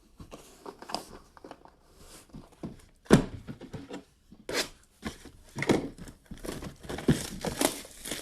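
Plastic shrink-wrap being torn and crumpled off sealed trading-card boxes, in irregular crackling rustles, with a sharp knock of a box being handled about three seconds in.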